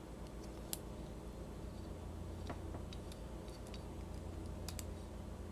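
Faint, irregular light clicks and ticks of a small die-cast metal toy truck being handled and turned over, over a steady low hum.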